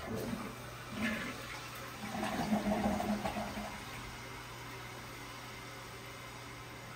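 Steady hum of a running fan, with about three and a half seconds of irregular handling and knocking near the start as a wrench works at the toilet's rusted-in water shut-off valve.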